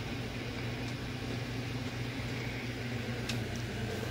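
Steady low mechanical hum of room tone, with one faint click a little over three seconds in.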